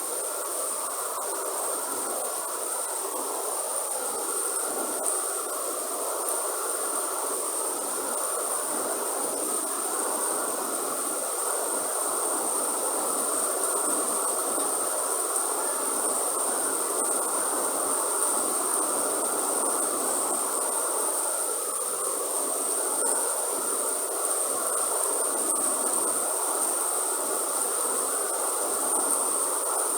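Steady heavy rain falling in a rainforest, with a continuous high-pitched insect drone running through it.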